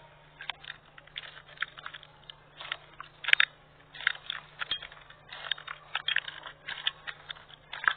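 Slime being squeezed and pressed by hand, making irregular crackling pops and clicks that come in clusters, sharpest a little after three seconds in.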